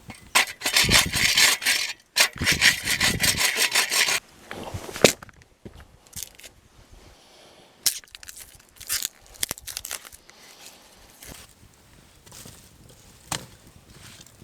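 Hand saw cutting through wood in two quick bouts of rough back-and-forth strokes, followed by scattered sharp snaps and knocks of wood.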